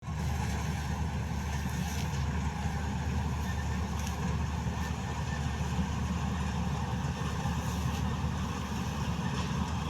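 Vishal 435 combine harvester running, a steady, unbroken engine drone heavy in the low end.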